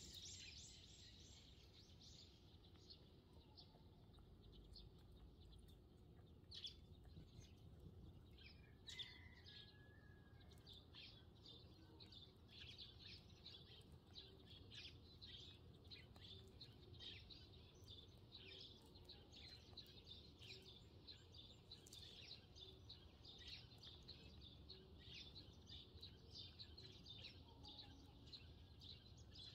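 A flock of Eurasian tree sparrows chirping faintly: many short, high chirps overlapping in a continuous chatter that thickens about six seconds in.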